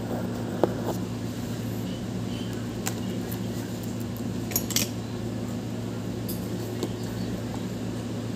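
Steady low hum with a few light clicks, about half a second, three and four and a half seconds in.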